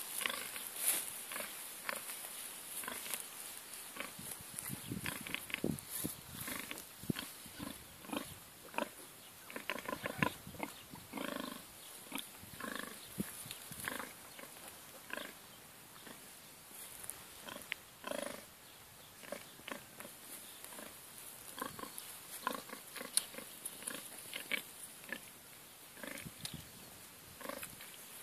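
A sow and her suckling piglets grunting and squealing in short, scattered calls, with small clicks and rustles in between.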